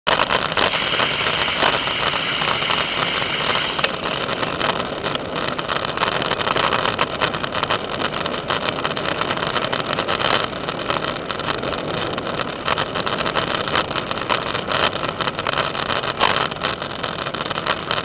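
Bicycle rolling over a crushed-gravel trail: a steady crunching tyre noise with frequent small rattles and knocks.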